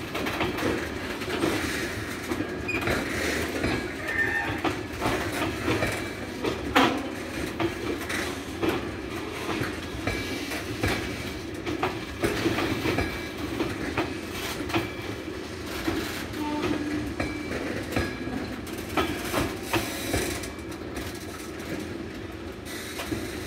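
Freight train's yellow engineer's box wagons rolling past, their wheels clattering over the rail joints in a steady run of clicks and knocks, with one louder clank about seven seconds in.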